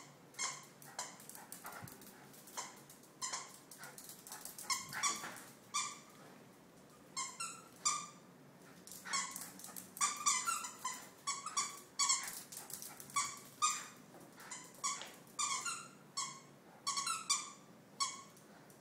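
Toy poodle giving short, high-pitched yips and barks over and over in irregular quick clusters, the excited frenzy of a wet dog after a bath.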